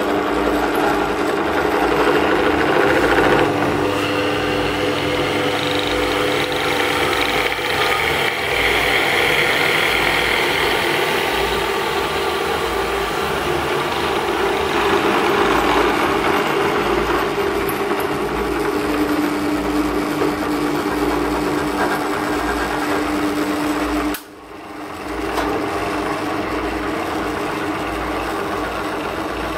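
Einhell BT-BD 801 E bench drill press running, its motor and spindle drive whirring steadily while the spindle speed is turned up and down, so the pitch of the whir shifts with the speed. About three-quarters of the way through the sound briefly drops away and then comes back.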